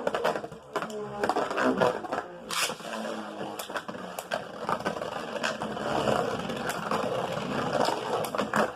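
Two Beyblade Burst spinning tops whirring and scraping around a plastic stadium, with sharp clacks as they collide.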